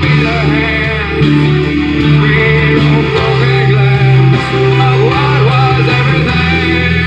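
Background music: a guitar-led rock song with bass and a steady band sound, with some vocals.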